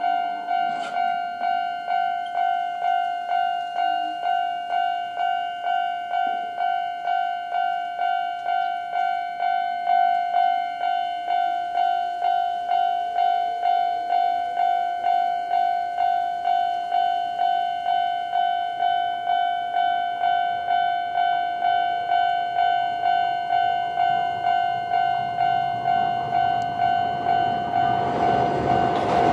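Japanese level-crossing warning bell, the old-type standard electronic bell, ringing at about two strokes a second. In the last few seconds the noise of an approaching train builds under it.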